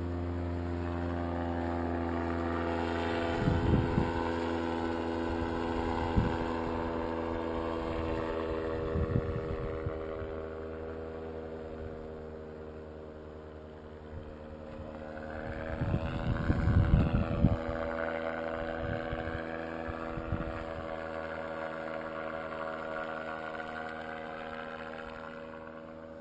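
Powered paraglider's engine and propeller droning steadily in flight, going a little fainter as it flies off. Gusts of wind buffet the microphone a few times, most strongly a little past halfway.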